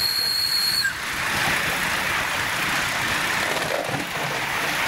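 5-inch gauge live steam model locomotive running along a raised garden-railway track. A high steady squealing tone cuts off about a second in, leaving a steady rushing noise of the engine and its wheels on the rails.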